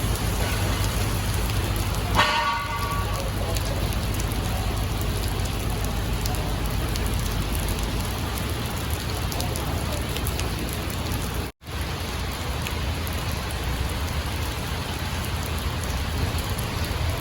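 Steady hiss of rain over a low, steady drone. About two seconds in there is a brief pitched sound, and near the end there is a split-second drop-out.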